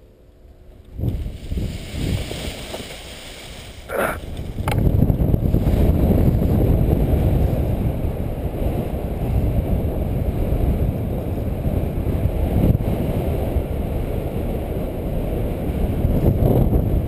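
Wind rushing over a helmet-mounted camera's microphone as a paraglider is towed aloft: softer while the pilot is still on the ground, then loud and steady from about five seconds in as he lifts off and climbs on the tow line.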